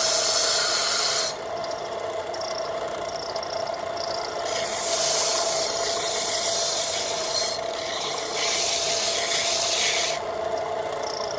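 Abrasive rasping in long passes of two to three seconds each, with quieter rubbing between them, as a saw-blade axe is shaped, over a steady faint hum.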